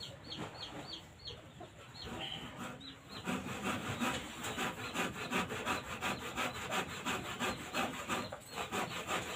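Fast, even rasping strokes like hand-sawing or filing, about four a second, starting about three seconds in after a few faint ticks.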